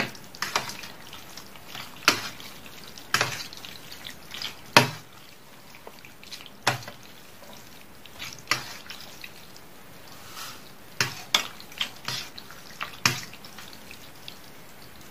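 Metal forks clinking and scraping against a stainless steel tray while stirring and lifting wet instant noodles in soup, with sharp, irregular clinks about once or twice a second that stop near the end.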